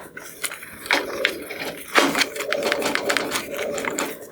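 A towel rubbing and wiping over a plastic headlight lens, cleaning off sanding slurry and drying it: quick, scratchy back-and-forth strokes with many small clicks, busiest from about a second in.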